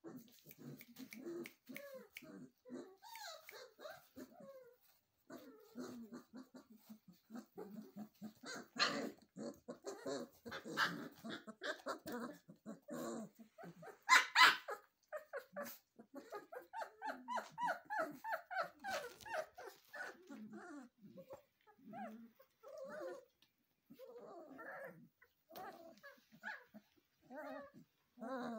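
Three-week-old puppies playing: small growls, whimpers and squeaky yips throughout, with a run of quick high yelps after the middle. A single sharp knock near the middle is the loudest sound.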